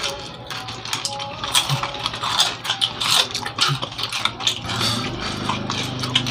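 People eating crispy spicy fried macaroni snack with spoons: a string of irregular sharp crunches and clicks.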